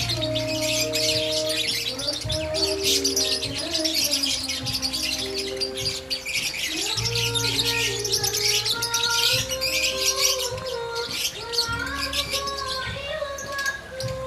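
Small pet birds chirping busily and continuously over background music with held notes and a bass line.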